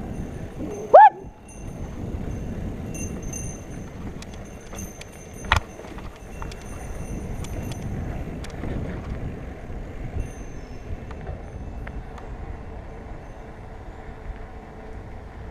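Mountain bike rolling over a dirt trail: steady tyre and frame rumble with wind on the microphone. About a second in there is a short, loud rising squeal, and about five and a half seconds in a single sharp knock.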